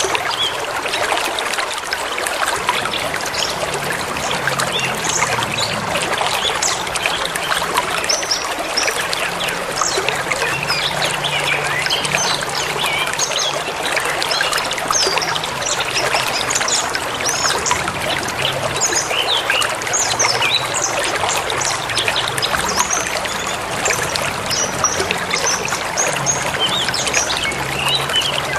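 A river running steadily through the forest, with many short, high bird chirps over it, thickest through the middle and sparser near the start and end.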